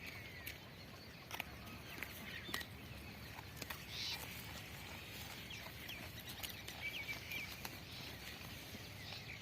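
Outdoor ambience: a steady background hiss with scattered short, high bird chirps and a few sharp clicks.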